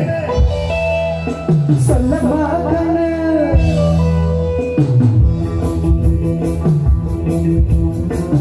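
Live band music through a stage sound system: a man singing long held notes over the band, then a quicker, even rhythmic accompaniment picks up about five seconds in.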